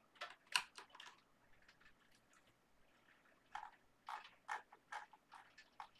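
Faint, scattered clicking of a computer keyboard and mouse: a quick run of clicks in the first second and another run of about seven from about three and a half seconds in.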